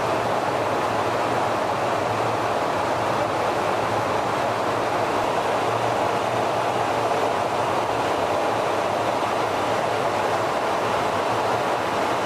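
Steady rushing noise of a KC-135 Stratotanker in flight, heard from inside the boom operator's pod, with a faint low hum beneath.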